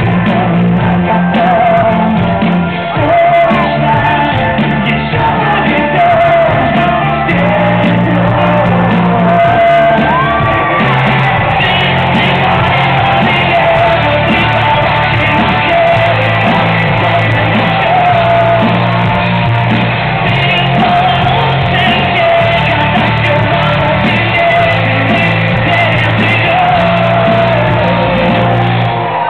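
Rock band playing live at full volume: a male lead vocal sung and shouted into the microphone over electric guitar, drums and keyboards, sounding muffled, with the highs cut off.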